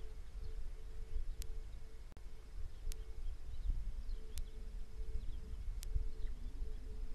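Outdoor bush ambience at a watering hole: a low rumble of wind with a faint, pulsing insect-like hum and scattered faint high chirps. Over it comes a sharp, thin tick that repeats evenly about every second and a half.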